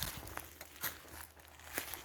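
Footsteps crunching over the forest floor, with several sharp snaps among the crunches.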